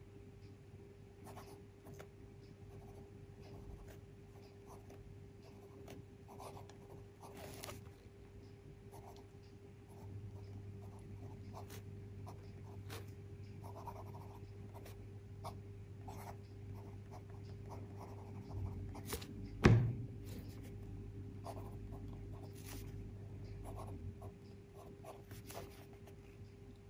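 Pelikan M600 fountain pen's fine gold nib writing cursive on a Rhodia pad: faint, soft scratching strokes on the paper. A single sharp knock comes about two-thirds of the way through, and a steady low hum runs underneath.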